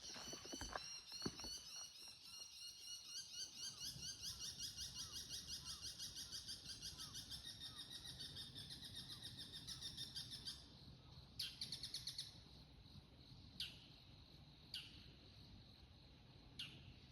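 Bull-headed shrike giving its shrill autumn territorial 'high call' (takanaki): a fast run of piercing repeated notes for about ten seconds, a shorter burst a little later, then a few single sharp notes.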